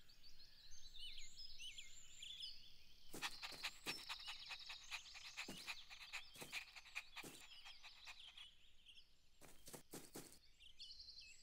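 Faint outdoor nature ambience: many short high bird chirps throughout, with scattered short clicks from about three seconds in.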